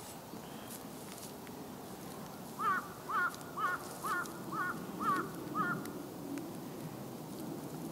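A crow cawing seven times in a quick, even series, about two calls a second, starting a little over two seconds in.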